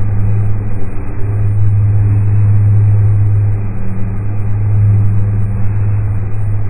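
Steady low drone with a strong hum near 100 Hz and a hiss layered above it: a synthesized space ambience presented as the sound of the dwarf planet Gonggong.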